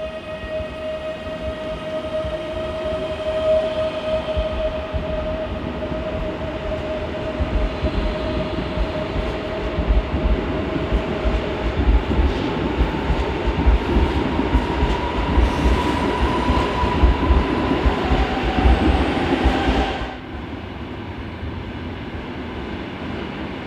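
PKP Intercity ED161 electric multiple unit moving through the station: wheel and rail rumble with a motor whine that slowly rises in pitch, growing louder towards its peak. About twenty seconds in, the sound drops abruptly to a quieter, steady rail rumble.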